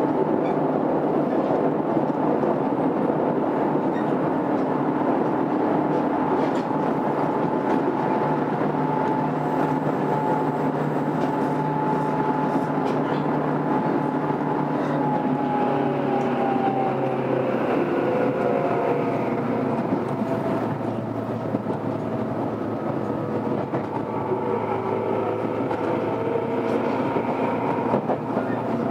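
Running sound heard inside a Tobu 20000 series commuter train car in motion: a steady rumble with several whining tones over it. The tones slide lower about two-thirds of the way through, and the sound gets a little quieter.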